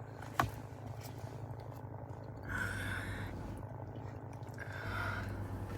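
Chewing and small mouth noises of people eating, with one sharp click about half a second in and two short hissy rustles later on, over a steady low hum.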